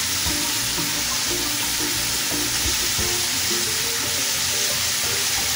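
Chicken frying in oil in a pan with onion and spices, a steady sizzle, with a few light knocks as it is stirred. Soft background music plays along.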